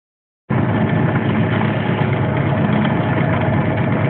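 Diesel locomotive engine running steadily, heard from inside the cab of the moving train, with a dense rumble of cab noise. It starts abruptly about half a second in.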